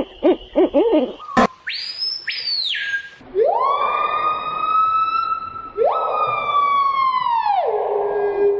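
A quick run of hoot-like calls, a sharp click, then a siren-like wail: a short high tone that drops away, followed by two long wails that rise and then slide down, the second settling into a low steady note near the end.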